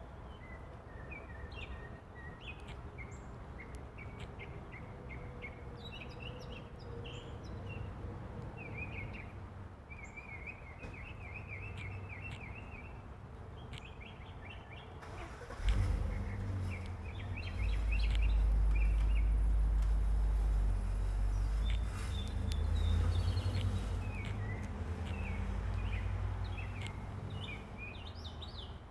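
Northern mockingbirds singing, a string of varied chirping phrases. About halfway through, a loud low rumble with a hiss comes in over the song and eases off near the end.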